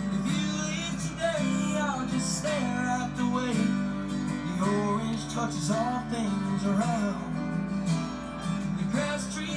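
Background music led by acoustic guitar, with a steady low accompaniment under a pitched melody line.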